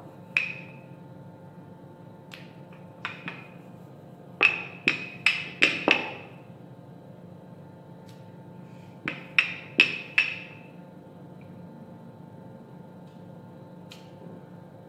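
Wooden rolling pin knocking against a hard countertop while rolling out dough thin. The knocks are sharp, each with a short ring. They come singly early on, then in two quick runs of about five, near the middle and again about two-thirds through.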